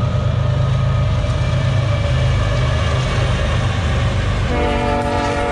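A freight train's diesel locomotives passing close by, with a steady low engine rumble and rolling-car noise. The locomotive horn sounds again about four and a half seconds in, a chord of several notes held to the end.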